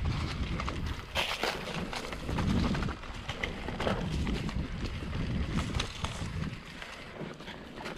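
Mountain bike rolling over a rough dirt trail: irregular knocks and rattles over a low rush of wind on the microphone, which drops off somewhat after about three seconds.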